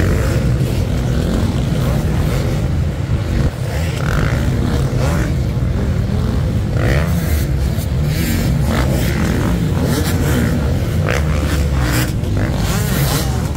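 Several motocross bikes' engines running and revving as they race over sand jumps, the revs rising and falling, over a heavy constant low rumble.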